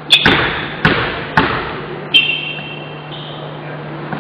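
A basketball being dribbled on the hall's wooden court: four echoing bounces, about two thirds of a second apart. A thin high squeak runs through the second half.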